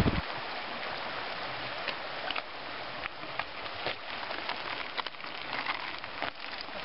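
Small stream trickling and splashing under a wooden footbridge, a steady, rain-like hiss, with a few light clicks and knocks from mountain bikes rolling over the bridge planks.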